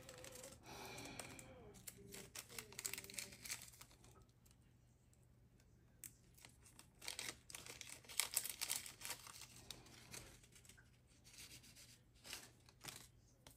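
Faint, scattered rustling and light clicks of hands handling marigold seeds and paper, busiest from about six to ten seconds in.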